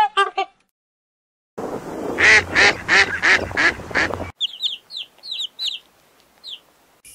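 A few short honking calls, then after a brief gap Canada geese honking loudly, about six harsh honks in quick succession, which stop abruptly. Then parrot chicks give short, high squeaky calls that slide downward.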